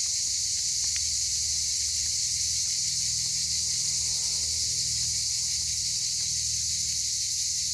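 Steady, high-pitched chorus of insects shrilling, with a low rumble underneath.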